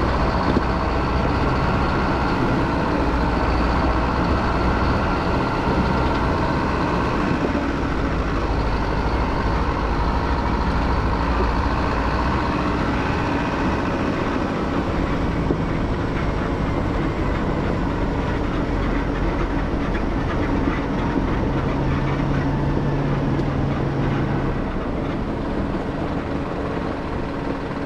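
Four-wheel-drive travel truck driving along a bush track, its engine and road noise running steadily.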